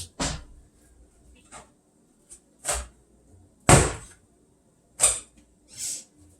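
Kitchen handling noises: about five separate knocks and clunks, like cupboard doors and items being set down, the loudest nearly four seconds in.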